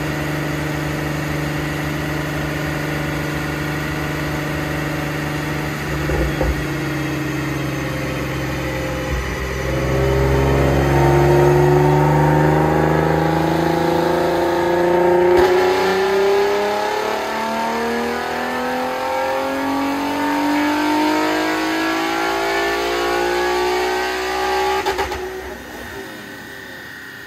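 Supercharged VQ37VHR 3.7-litre V6 of a Nissan 370Z Nismo on a chassis dyno, on a baseline power run. It runs steadily at first, then from about ten seconds in makes a full-throttle pull with the engine note climbing for about fifteen seconds. Near the end the throttle closes and the sound drops away.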